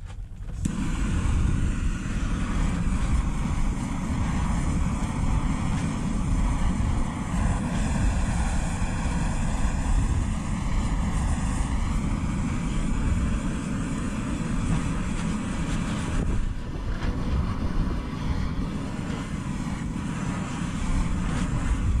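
Steady rumbling background noise, heaviest in the low end, that starts abruptly about half a second in. Around the middle, a slow swooping sweep passes through its tone.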